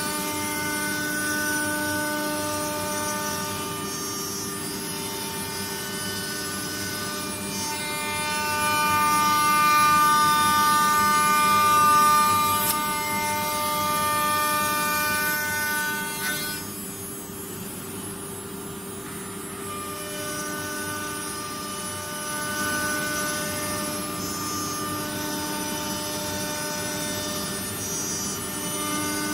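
CNC router spindle motor running with a steady whine of several pitches, louder around a third of the way in, briefly dropping away a little past halfway, then picking up again.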